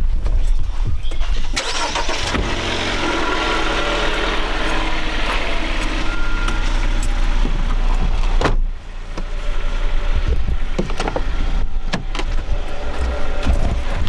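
Jeep Renegade running, with a steady low rumble beneath a louder wide hiss that drops off sharply about eight and a half seconds in, followed by scattered clicks and knocks.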